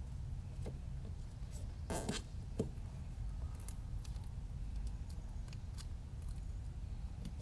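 Light handling noises of a small drone frame and its motor wires on a silicone work mat: scattered small clicks and short rustles, the clearest a brief rustle about two seconds in followed by a click, over a low steady hum.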